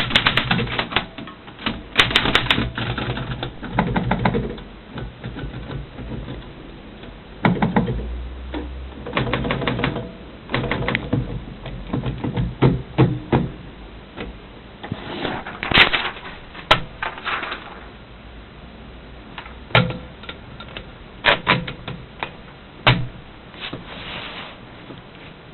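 1921 Smith Premier Model 40 desk typewriter being typed on: runs of sharp key strikes in bursts, separated by short pauses.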